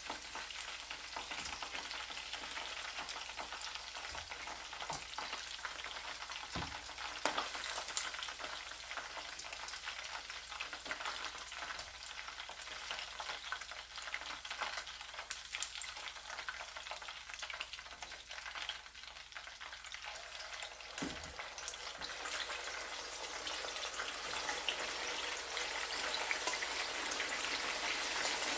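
Chicken wings frying in hot oil in a frying pan: a steady crackling sizzle with frequent small pops and spatters, growing a little louder near the end.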